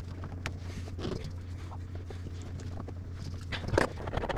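Light clicks and knocks of a bathroom sink faucet's metal handle and fittings being worked by hand, with a short cluster of louder clacks near the end, over a steady low hum.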